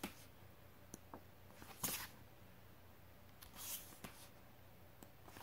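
Glossy pages of a photobook being turned: three brief paper swishes, the loudest about two seconds in, with a couple of faint taps.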